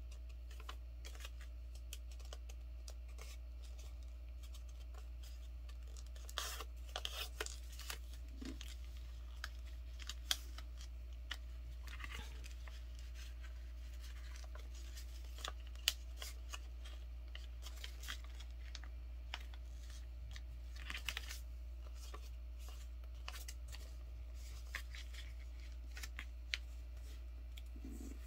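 A sheet of blue copy paper being folded and creased by hand: scattered crinkles and rustles with sharp little clicks as the folds are pressed flat, over a steady low hum.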